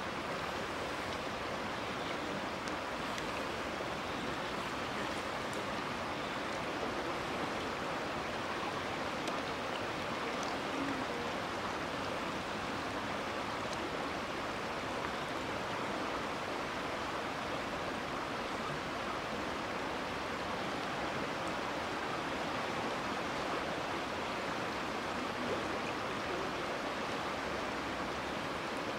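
Steady rushing of fast-flowing river floodwater.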